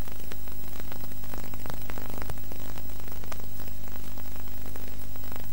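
Steady electrical hum and hiss, the background noise of an old TV soundtrack, with scattered faint crackles.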